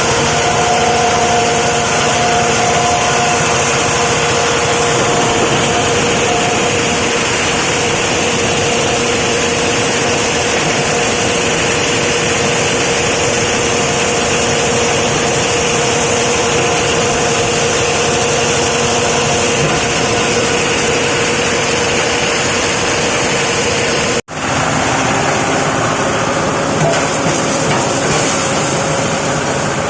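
Plastic crusher machine running loudly and steadily: a motor's steady hum with a dense rush of noise over it. The sound drops out for an instant about 24 seconds in, then carries on.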